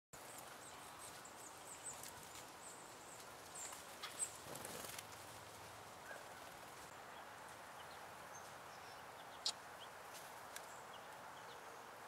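Quiet woodland ambience with a run of short, high, thin bird calls over the first few seconds. A few sharp clicks cut through, the loudest about four seconds in and another about nine and a half seconds in.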